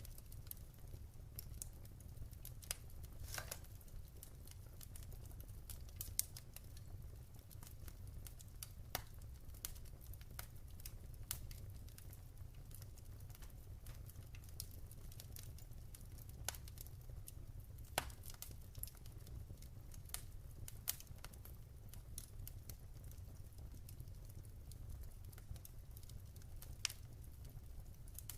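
Wood fire burning in a fireplace, with irregular sharp crackles and pops over a steady low rumble of the flames.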